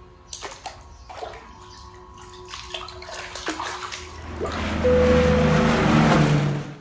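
Bare feet stepping into and stirring the water of a filled hot-spring tub, giving a few light splashes. About two-thirds of the way through, a louder, steady rushing sound swells up and cuts off suddenly just before the end.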